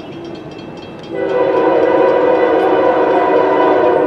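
Locomotive air horn sounding one long, steady blast, starting about a second in and lasting about three seconds, for an approaching train at a grade crossing whose bell is ringing.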